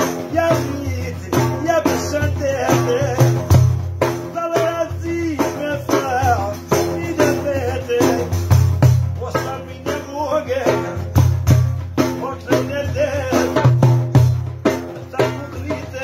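A man singing a folk song while beating a large frame drum with jingles (def), deep drum strokes and jingle rattle keeping the rhythm under his wavering voice.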